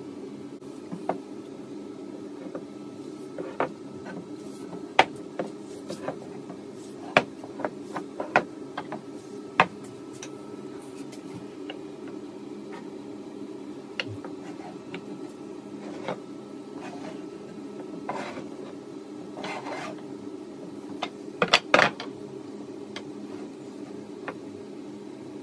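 Maple and mahogany strips knocking against each other and the workbench as they are handled and pushed together, with short scraping and rubbing sounds between. There is a quick run of loud knocks about 22 seconds in, over a steady low hum.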